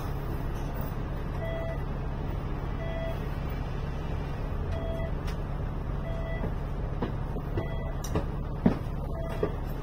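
Alexander Dennis Enviro500 MMC double-decker bus idling while stopped, a steady low engine hum, with a short beep repeating about every second and a half. A few sharp knocks near the end.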